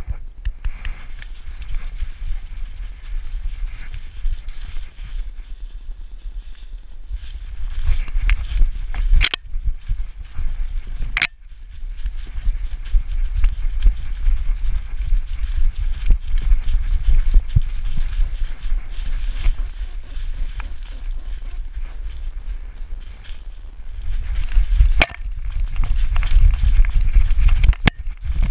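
A dog running hard through dry leaf litter, heard from a GoPro camera strapped to its back: a heavy jolting rumble with rustling footfalls. It is quieter for the first several seconds, then grows louder and busier, with a few sharp knocks, the loudest about eleven seconds in.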